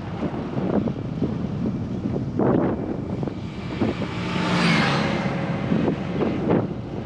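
Wind rushing on the microphone of a bicycle being ridden, with short knocks and rattles, and a motor vehicle passing close by about four to five seconds in, its sound swelling and then fading.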